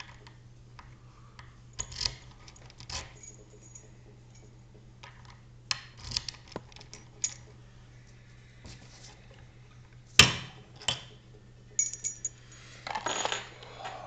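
Lock picks and a Mauer euro-profile lock cylinder being worked and handled in a steel vise: irregular small metallic clicks and rattles. The loudest is a sharp click about ten seconds in, followed by a longer rattle near the end.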